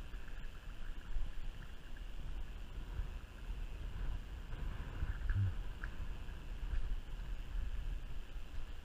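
Wind rumbling on a body-worn camera's microphone, with a few soft knocks from the camera moving through mangrove branches.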